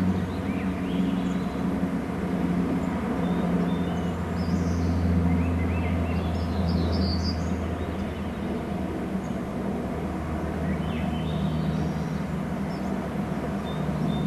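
Steady low drone of a distant motor, its pitch shifting slightly, with a few faint high bird chirps over it.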